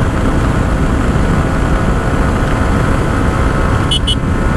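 Yamaha R15 V4's 155 cc single-cylinder engine running steadily at high highway speed, under heavy wind rushing over the helmet microphone. Two brief high pips sound about four seconds in.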